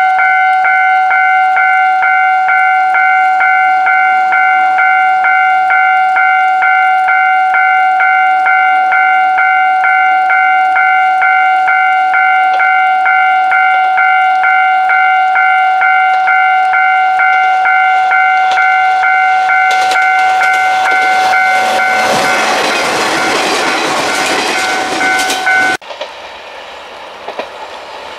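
Railway level-crossing warning bell ringing in steady, rapid, even strokes while a Kanto Railway Joso Line diesel railcar approaches and passes. The train's running noise swells over the last several seconds. The bell cuts off suddenly near the end, leaving the quieter sound of the passing train.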